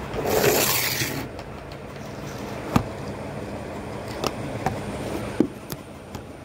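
Handling noise on a phone's microphone: a brief rustling scrape in the first second, then a few separate sharp taps and clicks, over a steady low hum.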